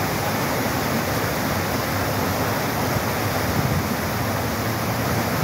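Rushing whitewater of a mountain creek tumbling over boulders close by, a steady, even rush of water.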